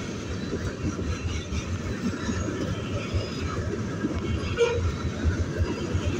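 Freight train cars, tank cars and covered hoppers, rolling past close by: a steady rumble with irregular clacking of steel wheels on the rails, and a brief squeak about two-thirds of the way in.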